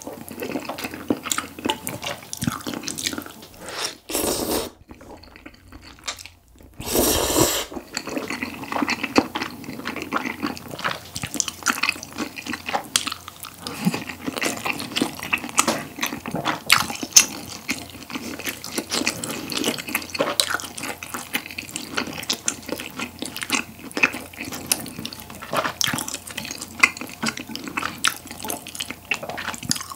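Close-miked wet chewing and mouth noises of someone eating tteokbokki with ramen noodles and grilled beef brisket. There are two short loud noodle slurps, about four and seven seconds in, then steady chewing with many small wet smacks and clicks.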